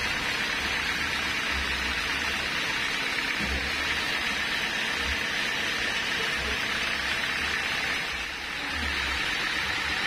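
Steady hiss of sawmill machinery running, with irregular low rumbles underneath.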